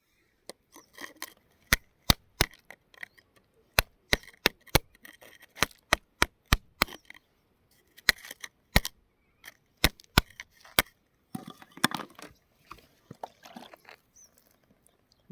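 Hard stone being tapped and knocked: a long irregular run of sharp clicks and cracks, with a stretch of quieter scraping and handling about twelve seconds in.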